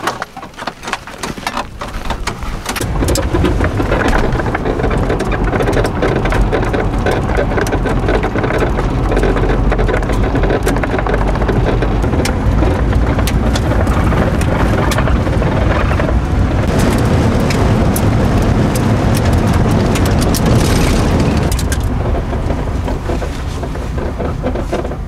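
Holden EH driving on an unsealed dirt road, heard from inside the cabin: a steady engine and road rumble with a constant fine rattle, building up about two seconds in and easing off a little near the end.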